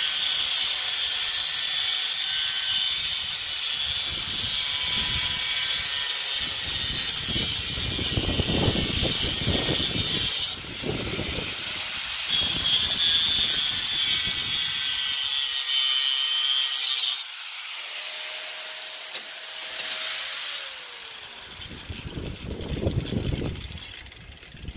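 Angle grinder with a cutoff wheel cutting through half-inch steel round bar, a loud steady high whine with the grit of the cut. Near the end the whine falls in pitch and fades as the grinder winds down. Wind gusts buffet the microphone.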